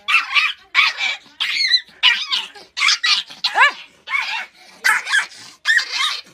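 Small fluffy dog yapping, a quick run of short, high-pitched barks, some sliding down in pitch, about two to three a second.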